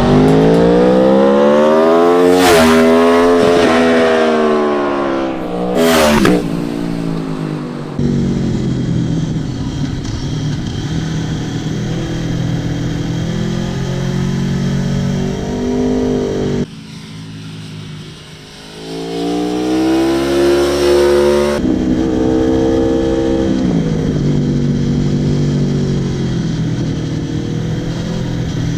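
Aprilia Tuono motorcycle engine revving up and down as the bike accelerates and slows on a race track. The engine pitch rises and falls repeatedly, with a few abrupt jumps where the footage cuts.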